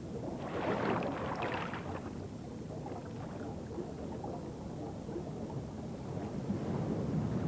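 Rushing, churning water noise: a louder surge about half a second in that lasts over a second, then a steady low rush of moving water.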